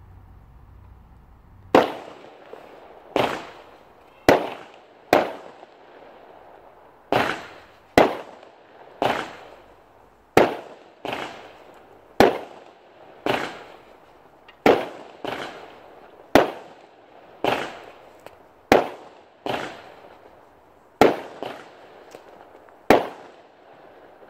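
A long string of firework bangs, about eighteen sharp reports roughly a second apart, each trailing off in an echo.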